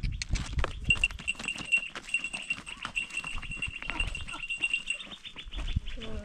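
Farm animals calling, among many sharp clicks and knocks, with a steady, pulsing high tone from about one to five seconds in.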